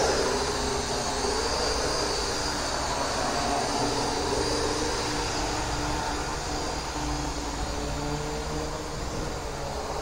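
Small racing quadcopter's motors and propellers buzzing in flight, the pitch wavering up and down as the throttle changes.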